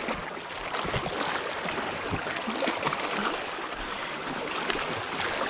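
Steady wash of sea water, an even rushing hiss with small splashes.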